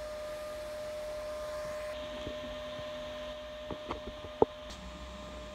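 Steady workshop background hum with a few light clicks near the middle, the sharpest about four and a half seconds in.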